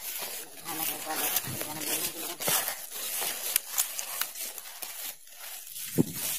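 Footsteps and brushing through wet vegetation on a slippery forest trail, with many small rustles and clicks and one sharp knock near the end.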